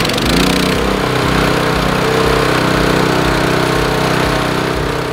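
Honda GX single-cylinder four-stroke engine on a Classen TS-20 slice overseeder, freshly started and running at a steady speed. Its pitch shifts briefly about half a second in, then holds even.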